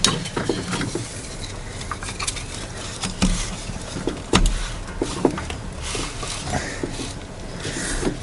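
Scattered clinks and knocks of metal hand tools and engine parts being worked on during an engine teardown, irregularly spaced, the loudest knock about four and a half seconds in.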